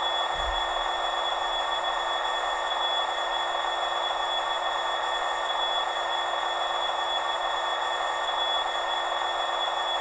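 Hornby HM7000 TXS sound decoder playing the Class 66 diesel idle through a small sugar-cube speaker: a steady, unchanging engine hum with a hissy edge and almost no bass.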